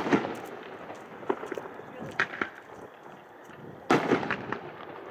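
A 12-shot consumer fireworks cake with 2-inch tubes firing: a loud bang right at the start and another about four seconds in, with scattered smaller pops and crackles between.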